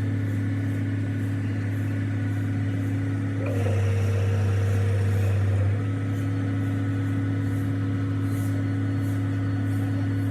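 A heavy machine's engine running with a steady hum, a little louder for a couple of seconds from about a third of the way in.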